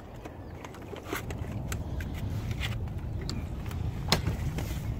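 Small boat under way on the water: a steady low rumble that grows louder about a second in, with scattered sharp clicks and knocks on board, the loudest about four seconds in.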